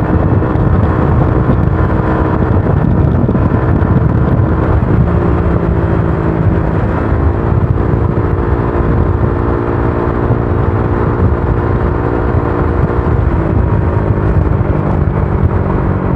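Honda Click scooter's engine heard through an aftermarket Akrapovic exhaust with its silencer insert left in, while being ridden, over a heavy low rumble. The exhaust note shifts in pitch several times as the throttle changes.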